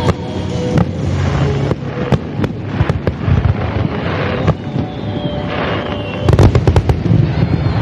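Aerial fireworks shells bursting overhead: a series of separate booms, then a quick flurry of bursts about six and a half seconds in, the loudest part.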